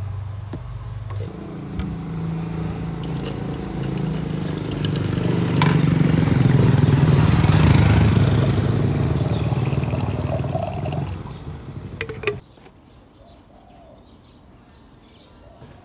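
Clear liquid poured from a steel tumbler into a plastic bottle, a steady splashing rush that swells in the middle and stops abruptly a few seconds before the end. A car engine idles underneath.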